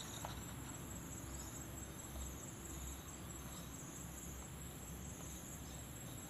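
Steady high-pitched chorus of insects trilling, with a couple of faint knocks as metal fan motor parts are fitted together.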